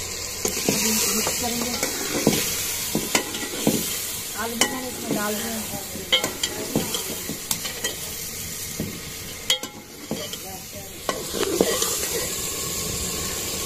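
Metal ladle stirring chicken and potato curry in a metal pot, knocking and scraping against the pot many times, over a steady sizzle of the spices and meat frying in oil.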